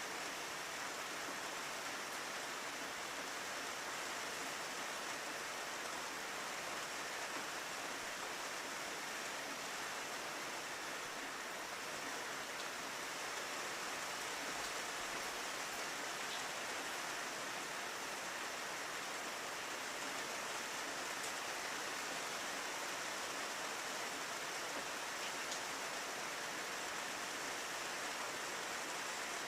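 Steady rain falling on a window pane: an even hiss with a few faint drop ticks.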